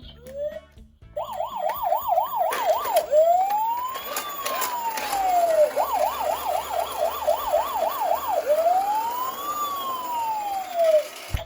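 Toy police car's electronic siren alternating between a fast warbling yelp and a slow wail that rises and falls, the pair repeating twice, with a few clicks about a third of the way in.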